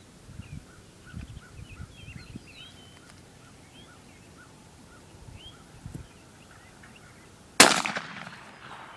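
One 20-gauge shotgun shot near the end, sharp and loud, followed by a short echoing tail. Small birds chirp in the quiet before it.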